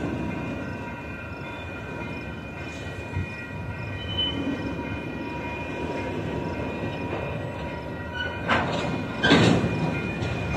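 Freight train of autorack cars rolling past: steady rumble of steel wheels on the rails with thin, steady high-pitched tones from the wheels. Two louder clanks come about eight and nine seconds in.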